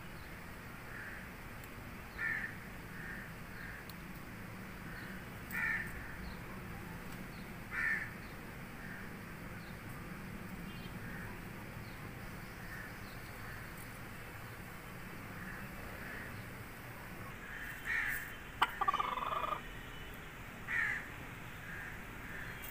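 Short bird calls repeated every few seconds, with a longer, louder call near the end, over a steady low background hum.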